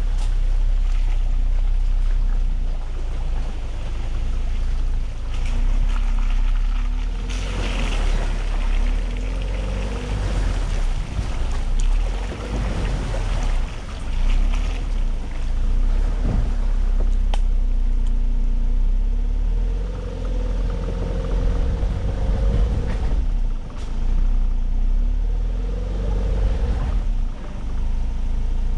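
Ford Ranger pickup's engine running at low speed off-road, with the revs rising and falling several times over a constant deep rumble, and scattered knocks from rough ground.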